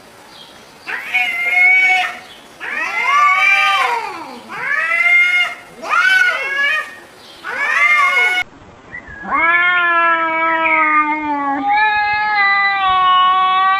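Domestic cat meowing five times in a row, each meow rising and then falling in pitch, followed by a long, drawn-out yowl held at a steady pitch.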